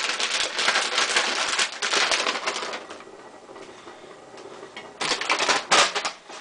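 Crinkly rustling and rattling of a plastic food bag as handfuls of raisins are scooped out and tossed into a steel mixing bowl. It goes quieter about halfway, then rustles again in short bursts near the end.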